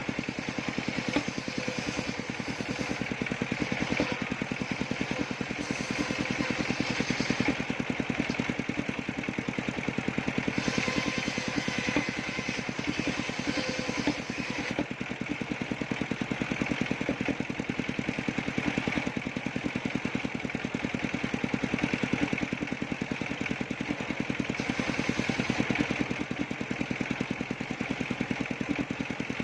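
Engine of a circular-saw sawmill machine running steadily with a fast, even beat.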